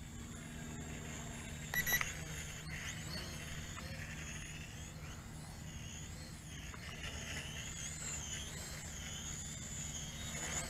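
Small JJRC H11WH quadcopter's motors and propellers whining faintly in flight, the high whine wavering in pitch as the throttle changes. About two seconds in, the radio transmitter gives a short beep, the kind it makes when the speed mode is switched.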